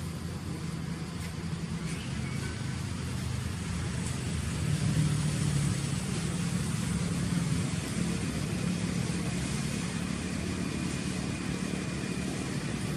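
A steady low engine hum, growing louder about five seconds in and easing off again.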